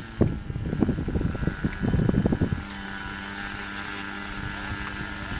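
Wind buffeting the microphone, then about halfway through a model airplane's engine starts running at a steady, even hum.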